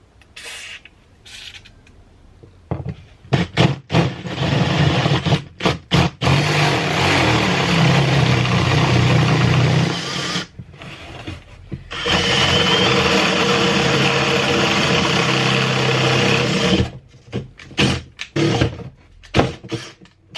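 Power drill enlarging holes in a seat-mount bar to 10 mm: a few short trigger bursts, then two long steady runs of several seconds each with a break between them, then more short bursts near the end.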